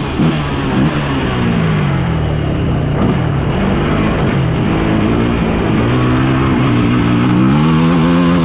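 Off-road vehicle engine under way, its pitch rising and falling several times as the throttle is opened and eased, over a steady rush of wind and road noise.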